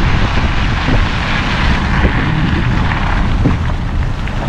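Car driving on a wet road: a steady low rumble of tyres with a hiss of spray and wind, the hiss swelling a little in the middle.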